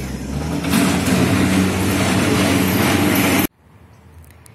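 Tractor engine running steadily close by, then cutting off suddenly about three and a half seconds in.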